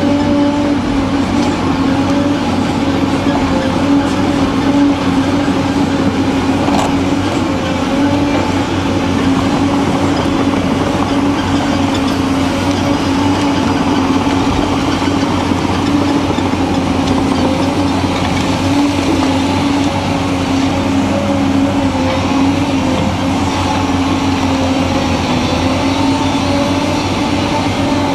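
Heavy diesel engine of Caterpillar earthmoving machinery running at a steady, unchanging pitch, a deep drone with a constant hum.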